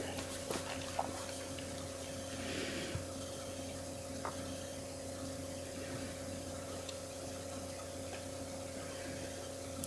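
Quiet steady low hum with a faint hiss.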